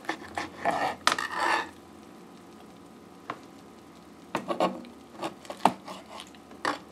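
Knife and fork cutting a ham steak on a plastic cutting board: a stretch of scraping in the first second and a half, then scattered short clicks and taps of the blade and fork against the board.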